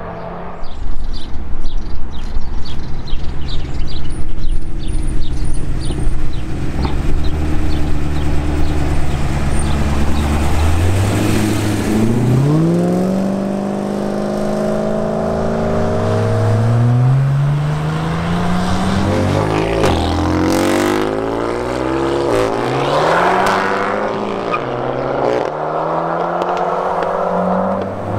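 Supercar engines revving and accelerating hard. A Bugatti Veyron's quad-turbo W16 pulls away about halfway through, its pitch climbing and dropping back through several upshifts.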